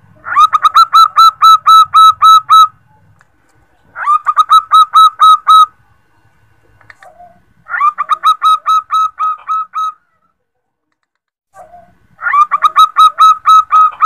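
Female zebra dove (perkutut) calling to a male: four bursts of rapid, evenly repeated short notes, about five a second, each burst lasting around two seconds with pauses between. The last burst runs on past the end.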